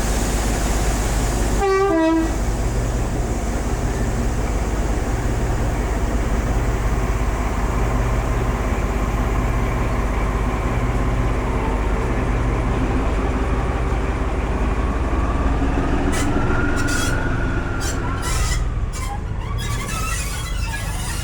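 A British Rail Class 14 diesel-hydraulic locomotive (D9529) running steadily at a stand, its low engine note constant throughout. A quick falling tone cuts across it about two seconds in, and near the end there is a tone that rises and falls, with a few sharp clicks.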